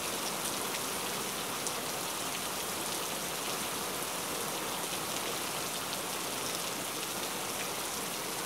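Pan of water boiling on the stove with cauliflower florets in it: a steady bubbling hiss.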